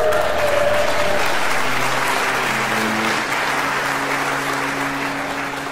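Audience applause that slowly dies away, with low, held string notes from the quartet coming in under it about one and a half seconds in.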